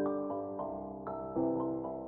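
Gentle background piano music: soft chords and notes struck every half second or so, each ringing and fading.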